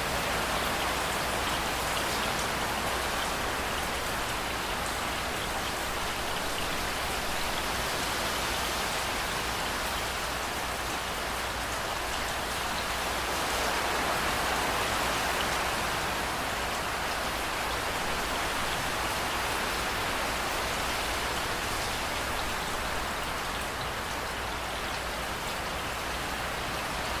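Steady rain falling, an even wash of drops with no thunder, swelling slightly about halfway through.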